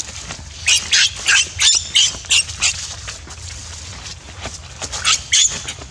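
Baby macaque giving a rapid string of short, shrill screams, about a dozen in two seconds, then two more near the end: distress cries as the mother grabs and drags it.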